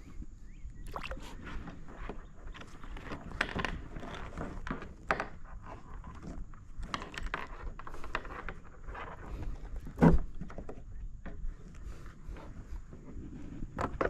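Scattered knocks, clicks and rustling of handling in a kayak, with one loud knock about ten seconds in.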